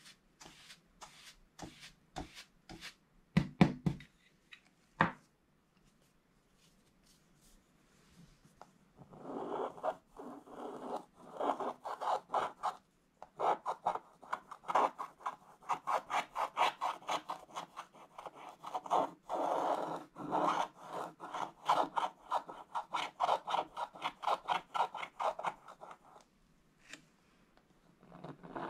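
Wooden stylus scratching the black coating off a scratch-art page in quick, short strokes, many a second, with a short pause near the end. Before the scratching starts, a few separate knocks and taps, the loudest about three and a half and five seconds in.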